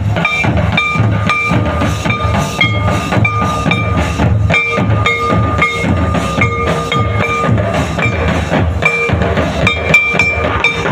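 Rhythmic folk drumming with a quick, even beat and a steady high tone sounding over it: music for a line dance.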